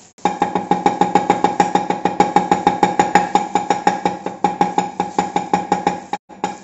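Steel cleaver rapidly mincing garlic cloves on a wooden chopping board: fast, even chops, about seven a second, each knock ringing. The chopping stops for a moment near the end.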